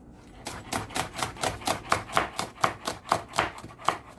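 Knife chopping seasoning vegetables on a cutting board, in quick even strokes of about four a second that begin about half a second in.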